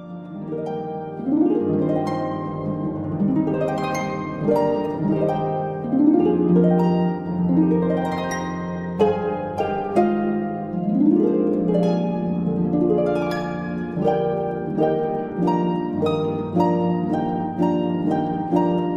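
Background music of plucked, harp-like string notes in a steady, continuous run.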